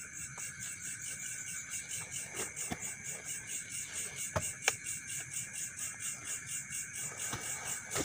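A night chorus of insects: a steady high chirring with a fast, even pulsing over it. Two sharp clicks stand out about four and a half seconds in.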